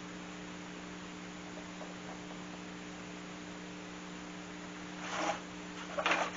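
Steady electrical mains hum, with a brief rustle about five seconds in and a few light knocks near the end.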